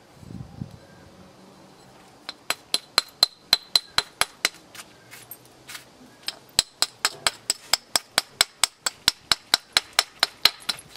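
Hammerstone striking the edge of a chert piece in quick light taps, a run of sharp clinking clicks at about four to five a second that starts about two seconds in.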